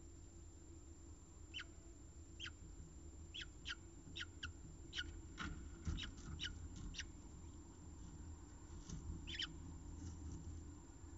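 Peregrine falcons calling at the nest during a prey delivery: about fifteen short, sharp, high calls, each dropping quickly in pitch, coming in quick succession through the middle and a couple more near the end.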